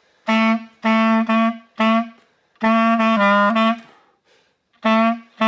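Clarinet playing a simple phrase of short, repeated notes on one pitch (D), with a brief dip to a lower note about halfway through.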